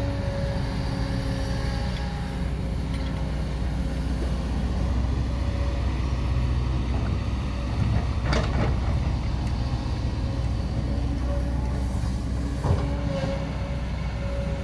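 Excavator working: a steady low machine rumble with a faint whine that comes and goes, and a sharp clunk about eight seconds in and another near the end.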